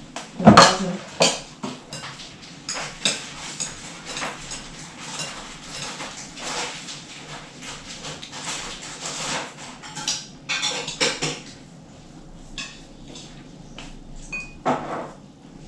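Chopsticks and spoons clinking and scraping against ceramic bowls and a wok while people eat, in scattered irregular clinks, with one loud clack about half a second in.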